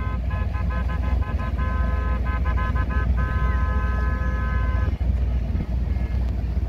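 Boat horn sounding a quick run of short toots, then one long blast of nearly two seconds, over a steady low rumble.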